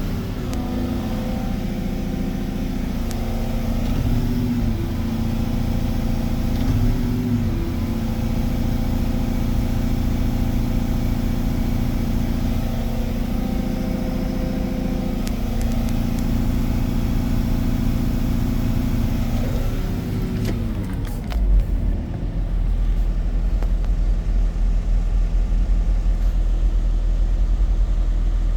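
Diesel engine of a Volvo EC220EL crawler excavator running after repair, its pitch dipping briefly several times. About 21 seconds in it changes to a lower, steady run with a heavy low rumble.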